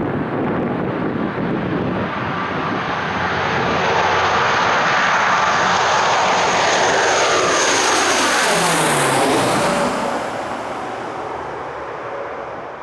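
Antonov An-12's four Ivchenko AI-20 turboprop engines at takeoff power as the aircraft goes past. The sound grows louder and is loudest for several seconds, drops in pitch as the plane passes about eight to nine seconds in, then fades away.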